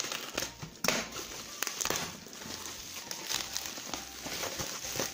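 Plastic bubble-wrap mailer crinkling and crackling as it is handled and unwrapped, with a louder crackle about a second in.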